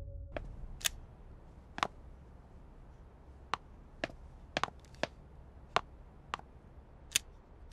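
A dozen or so sharp, irregularly spaced clicks and taps over a faint low room hum, as from objects being handled or set down.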